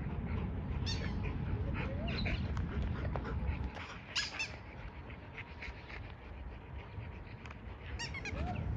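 A Rottweiler gives short high-pitched whines in a few brief clusters while trotting on the lead, over a low steady rumble.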